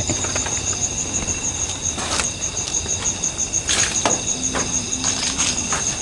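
Night insects chirping in a high, even pulse about five times a second, with two brief rustles about two and three and a half seconds in.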